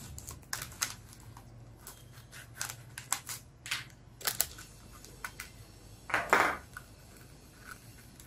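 Rigid clear plastic blister pack being handled and pried open by gloved hands, a run of sharp crackles and snaps as the plastic flexes, with a longer, louder crinkling burst about six seconds in.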